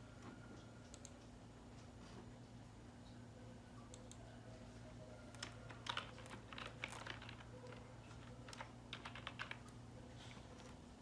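Light, sharp clicks and taps, coming in two short flurries past the middle, over a faint steady electrical hum.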